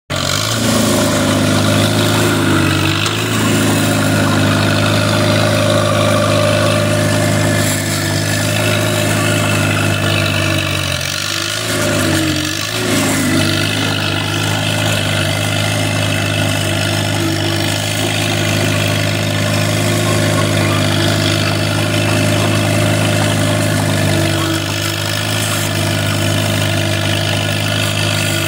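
Allis-Chalmers H-3 crawler dozer's engine running steadily at working speed while the blade pushes dirt. Its pitch sags and recovers as the load comes on: once about three seconds in, twice around the middle, and again near the end.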